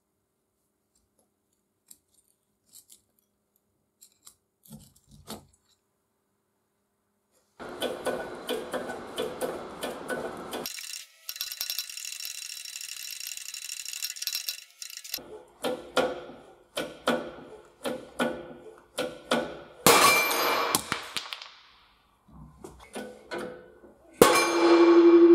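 A seized, rusty bolt in a cast rebar cutter being forced out under a hydraulic press. From about seven seconds in there is a run of sharp metallic cracks and pops as it gives, with a few seconds of steady hiss. It ends in a loud clang that keeps ringing.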